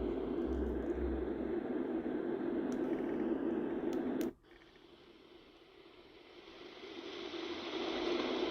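Yogasleep Rohm white noise machine playing a deep, low-pitched noise. After a couple of faint clicks about four seconds in, it cuts off and a different, brighter hiss fades up over the next few seconds.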